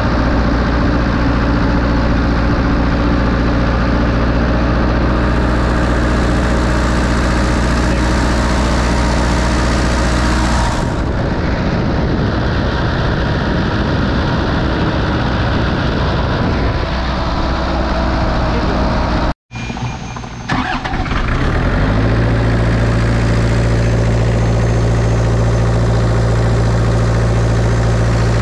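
Kubota KX161 mini excavator's four-cylinder diesel engine running steadily, heard close up in the open engine bay. The owner hears loose compression in its sound and suspects overheating and a compression problem.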